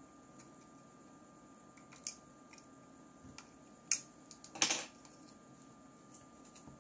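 Small clicks and taps of things being handled on a workbench, the sharpest a little before four seconds in, followed by a short rustling scrape. A faint, steady, high-pitched electronic whine runs underneath.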